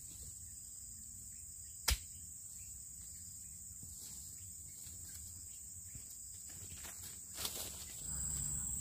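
Steady high-pitched insect chirring, with one sharp knock about two seconds in and a few soft knocks near the end.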